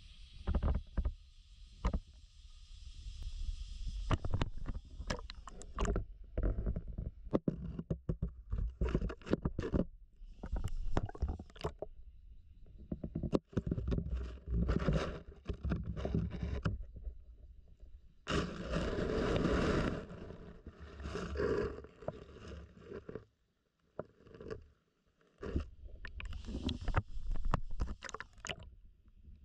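Irregular knocks, scrapes and water sloshing picked up by a GoPro inside its waterproof housing as it is dipped and moved about in a shallow river, with a denser stretch of noise about two-thirds of the way in.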